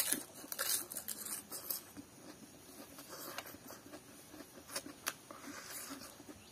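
A person chewing food with wet mouth smacks and clicks, irregular, coming thickly in the first two seconds and more sparsely after.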